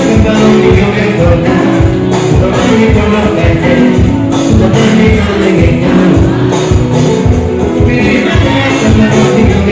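Live band music with a singer, over a steady drum beat.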